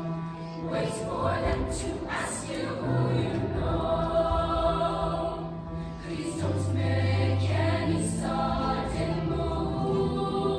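Choir singing sustained, wordless-sounding notes over a backing track with a low bass line.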